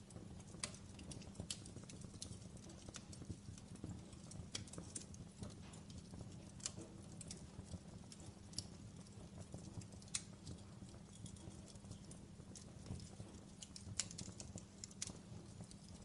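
Wood campfire crackling: irregular sharp pops and snaps over a low steady rumble.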